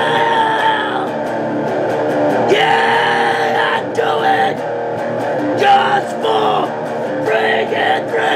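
A man singing a metal song over his own electric guitar playing, holding long notes that bend down at their ends.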